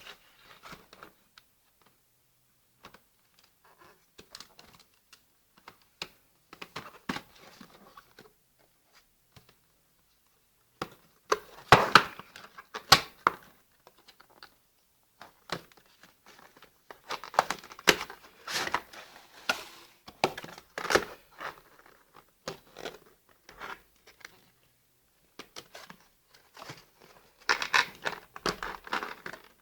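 Packaging being unwrapped and handled: irregular crinkling and rustling with small clicks and knocks, busiest about a dozen seconds in, again around twenty seconds, and near the end.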